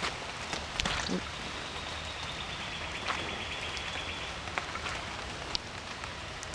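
Light rain pattering, with scattered sharp drop clicks. A faint, thin high trill runs from about one second in to about four seconds in.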